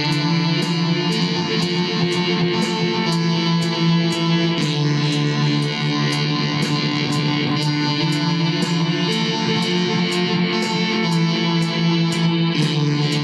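Instrumental electric guitar music: guitar playing over sustained low held notes, with a steady high ticking beat about two or three times a second.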